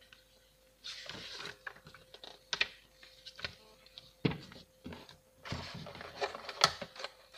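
Packaging being handled by hand: paper leaflets, a cardboard box and a clear plastic tray rustle and click, with irregular sharp clicks and knocks. The loudest click comes about six and a half seconds in.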